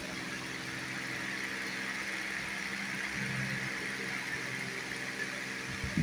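A steady low mechanical hum of a running motor, with a faint steady hiss above it.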